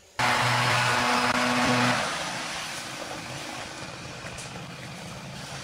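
A small engine running, coming in suddenly with a steady hum and loud for about two seconds, then dropping to a lower, steady noise.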